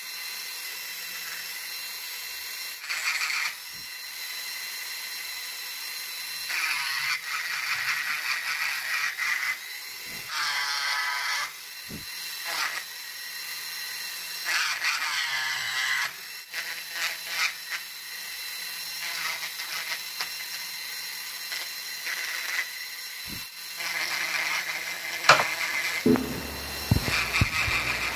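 Dremel rotary tool with a cylindrical burr carving mesquite wood. The motor keeps up a steady high whine, and the sound gets louder and rougher in repeated stretches as the burr is pressed into the wood.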